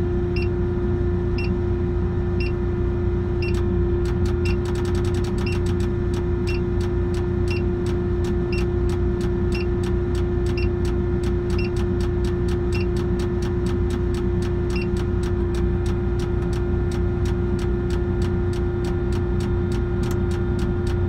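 Mobile crane's engine running steadily with a constant hum and low rumble, heard from inside the cab. A short electronic beep repeats about twice a second, and from about four seconds in a regular sharp ticking joins it.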